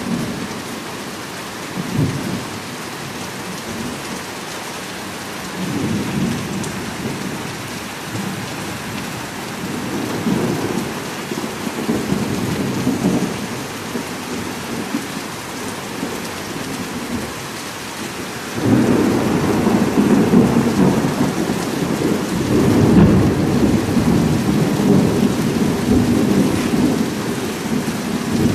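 Heavy rain falling steadily, with thunder rumbling several times. A longer, louder roll of thunder begins about two-thirds of the way through and goes on.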